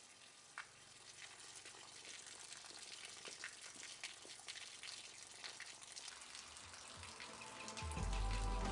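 A thin stream of water falling from a plastic tube and splashing below: a faint, steady patter scattered with sharp drip-like ticks, slowly growing louder. Music fades in near the end.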